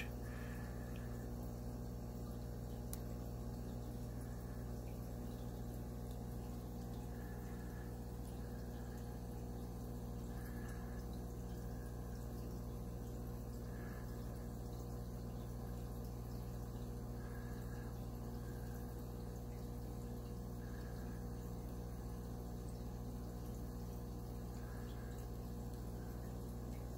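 Aquarium filter pump running with a steady low hum and faint water movement.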